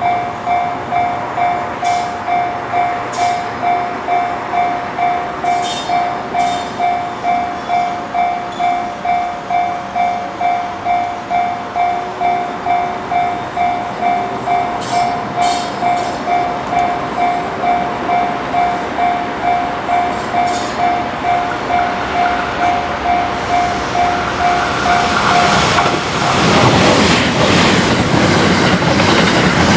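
Railway warning bell ringing steadily at about two strikes a second, which stops abruptly about 26 seconds in. It gives way to the loud rush of a JR West Thunderbird limited-express electric train passing close at speed.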